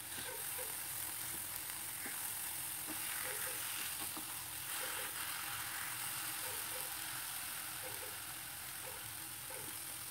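Fish steaks sizzling quietly in a dry non-stick kadai with no oil as their water cooks off, with soft scrapes and taps of a spatula turning them.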